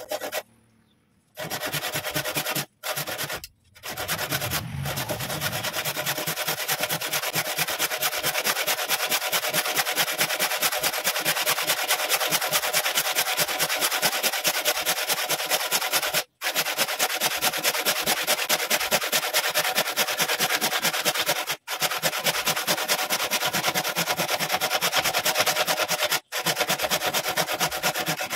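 A tool rubbing against a piece of wood spinning on a wood lathe, a steady rasping with a fast, even pulse. The sound is broken by several brief, abrupt gaps.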